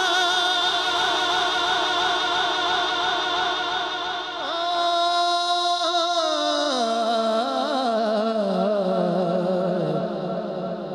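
A male naat reciter's voice, amplified through a microphone, holding a long drawn-out note without words with a slight waver, then sliding down in pitch in steps from about six seconds in to a lower held note.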